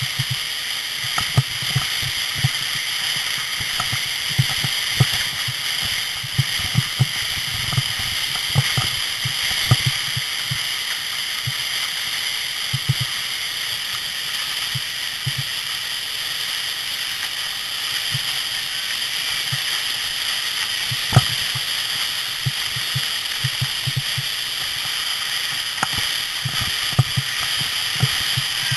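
Sled sliding fast down a snow course: a steady hiss of snow under the sled, broken by frequent knocks and bumps.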